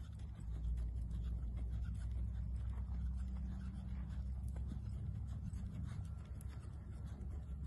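Horse's hooves scuffing and thudding softly in loose arena dirt at a walk, under a steady low rumble.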